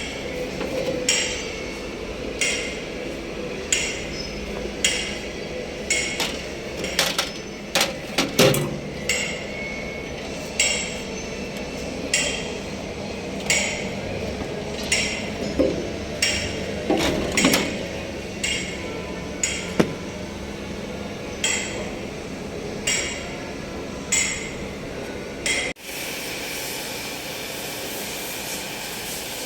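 Hammer blows on metal in a steady rhythm, about one strike every second and a quarter, each with a short metallic ring. About three-quarters of the way through the blows stop and a steady rushing noise takes over.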